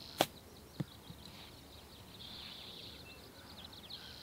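A 62-degree wedge striking a golf ball out of thick rough on a chip shot: one sharp click about a fifth of a second in, then a fainter knock about half a second later, over a steady high chirring of insects.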